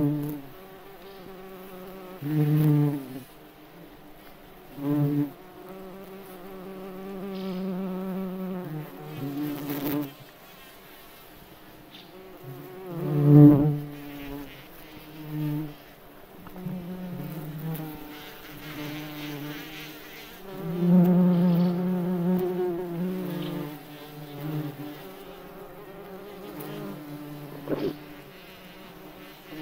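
Bumblebee wing buzz, a low hum that swells and fades again and again as bees fly close, with the loudest passes about 13 seconds in and from about 21 to 23 seconds.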